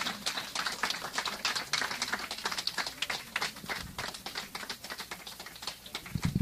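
Scattered hand clapping from a small audience, many uneven claps a second, with a dull thump near the end.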